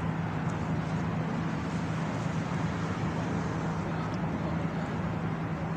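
A steady low mechanical hum over a broad, even hiss, unchanging throughout.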